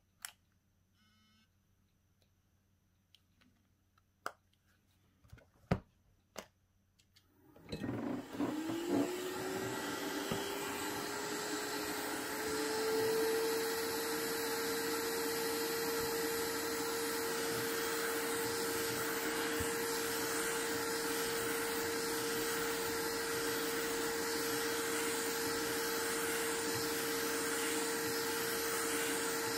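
A few light clicks and taps, then about eight seconds in an electric blower motor spins up, its whine rising and settling into a steady tone with a rushing hiss of air. This fits a heat gun or hot-air tool used to soften adhesive during a phone battery replacement.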